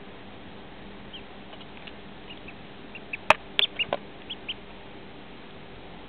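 Duckling peeping: a scatter of short, high peeps, faint at first and louder from about three seconds in, with a few sharp handling clicks among the louder peeps.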